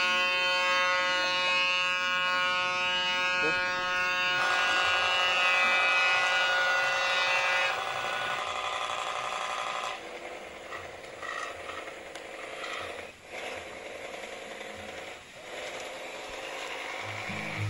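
Toy pop-pop (otok otok) steam boat engine running, its boiler diaphragm giving a fast, steady buzz. The buzz shifts about four seconds in and turns quieter and rougher in the second half.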